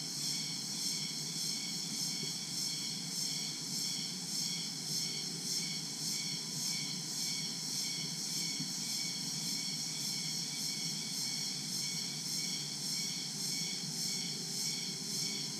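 Dense daytime chorus of crickets and other insects in tropical jungle, a high shrill trilling that pulses evenly several times a second, over a steady low rumble.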